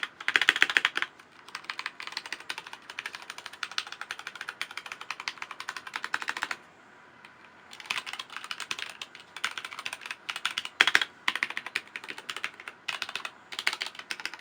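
Fast typing on a Blitzwolf BW-KB1 mechanical keyboard with Gateron brown switches: a rapid, continuous clatter of key clicks, with a few heavier strikes. The typing stops for about a second a little past the middle, then resumes.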